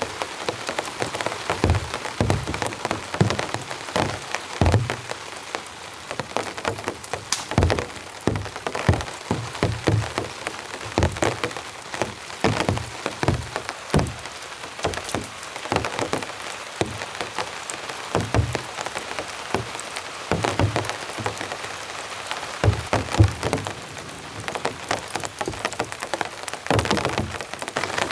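Steady rain hissing, with irregular sharp knocks and crackles about once or twice a second, from heavy drops and wet twigs crackling as a small campfire is lit.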